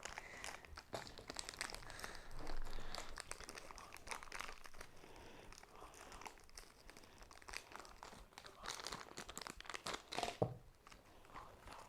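Toy packaging crinkling and rustling as it is handled and unwrapped, with many small, irregular crackles.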